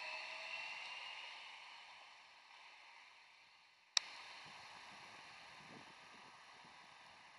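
Electric tram pulling away, its traction motors whining in a few steady tones that rise slightly in pitch and fade as it draws off. About four seconds in there is one sharp click where the recording cuts, followed by a faint, even hiss with low rumbles.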